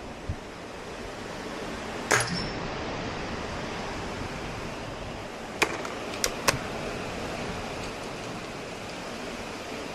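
.22 break-barrel spring air rifle firing: one sharp crack about two seconds in, with a brief high metallic ring after it. About three and a half seconds later come three quick sharp clicks of the rifle being handled, all over a steady background hiss.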